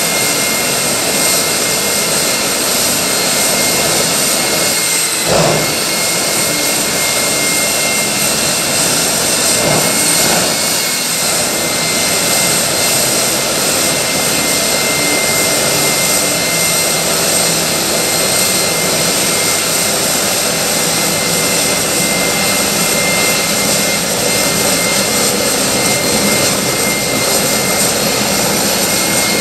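Jet engine of a jet-powered Kenworth drag truck running steadily, loud, with a steady high whine over the rush of exhaust. A short louder burst comes about five seconds in, and two fainter ones around ten seconds in.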